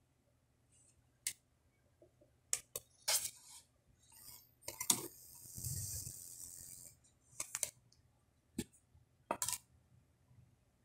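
Scattered faint clicks and knocks, some in quick pairs, with a short hiss about five to seven seconds in.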